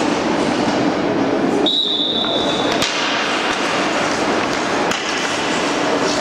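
Ice hockey rink noise: a steady wash of skate blades scraping the ice and the arena's hubbub. About two seconds in, a single high referee's whistle blast lasting about a second cuts off sharply.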